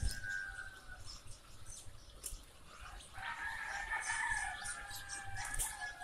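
Many day-old chicks peeping as they are handled, with a low thump at the start. A long, slightly wavering tone fades out about a second in and comes back about three seconds in.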